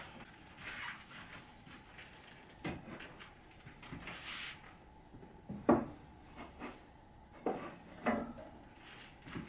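Objects being handled and set down on a shelf: four separate knocks and clunks, the loudest about halfway through, with a short rustling swish just before it.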